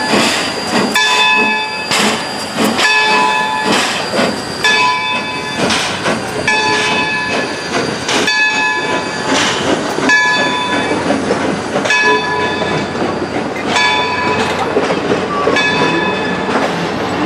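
Locomotive bell on a Baldwin 0-6-0 steam switcher ringing steadily, about one stroke a second. Underneath it, the locomotive and its wooden-era passenger coaches roll slowly past, wheels clicking over the rail joints.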